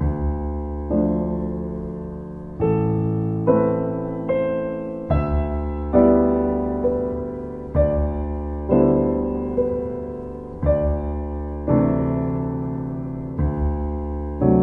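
Slow, gentle solo piano music: chords and single notes struck every second or so, each ringing and fading before the next.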